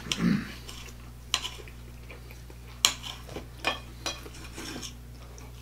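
Knives and forks scraping and clicking against plates as grilled steak is cut, with a handful of separate sharp clinks spread across the few seconds.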